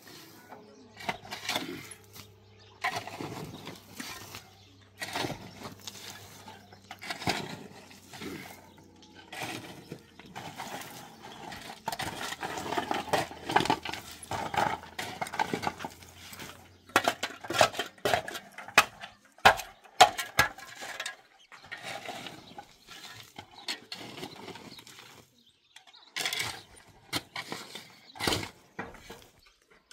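Irregular clatter of hard objects being handled, knocks and clinks, with a run of sharper, louder clicks around the middle. A faint steady hum lies under the first half and then stops.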